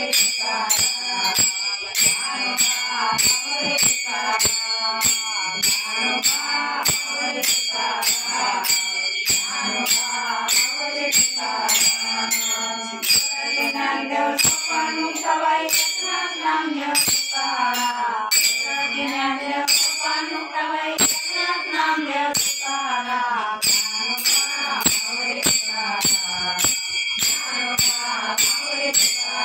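An elderly woman's voice singing a Marathi devotional bhajan, accompanied by jingling, ringing metal hand percussion struck on a steady beat.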